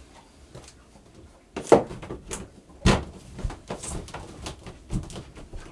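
A plastic access panel being handled and set back into its opening in a shower wall: a series of knocks and clacks, the loudest about a second and a half in, then lighter taps as it is pressed into place.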